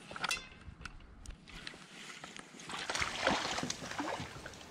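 Water splashing as a hooked fish thrashes at the surface beside a dock while being reeled in, picking up about three seconds in with several quick splashes.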